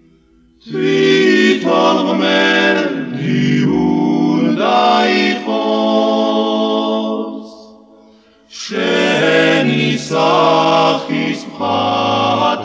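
Male vocal group singing a song in harmony. The singing comes in just under a second in, fades out about seven and a half seconds in, and comes back about a second later.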